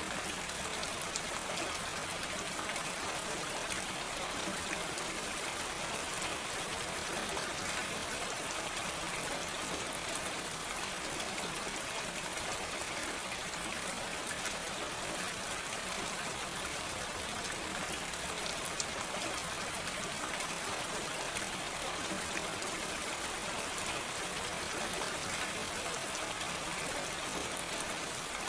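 Steady gentle rain, an even hiss sprinkled with many small drop ticks, with no thunder.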